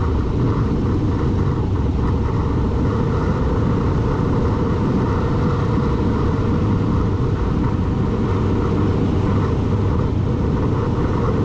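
A vehicle on the move, heard as a steady, loud rumble with no change in pitch.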